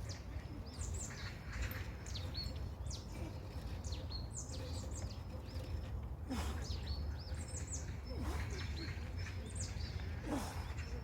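Several birds chirping and calling, many short rising and falling notes, over a steady low background rumble. There are two brief noisy sounds about six and ten seconds in.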